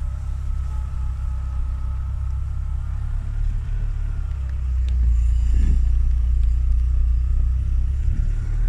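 Peugeot 306's 1.6 8-valve engine running as the car drives over grass, a steady low rumble that grows louder about five seconds in.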